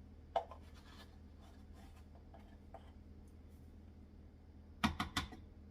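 A measuring teaspoon lightly scraping and tapping as it is used: a faint click at first, soft scratchy scraping, then a quick cluster of sharp taps about five seconds in.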